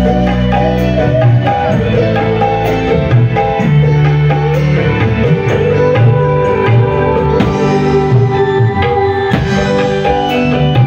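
Dangdut koplo music over a sound system: kendang hand drumming with sustained bass notes and a melody.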